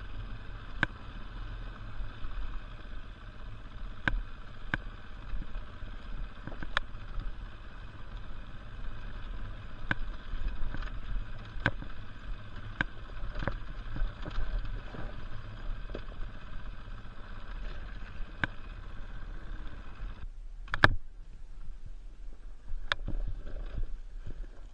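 KTM 450 EXC's single-cylinder four-stroke engine running at low speed on a slow mountain trail, with sharp knocks every second or so from the bike going over rough ground. About 20 seconds in the engine sound drops away suddenly, followed by one loud knock.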